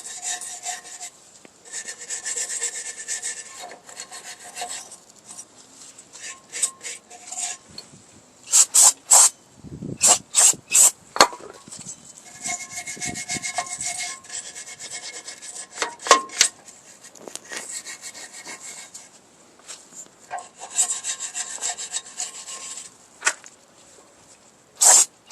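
Repeated hand rubbing and scraping strokes cleaning the brake backing plate's raised pads where the shoes ride, in runs of a few seconds with pauses between. A few louder, short, sharp bursts come about a third of the way in and again near the end.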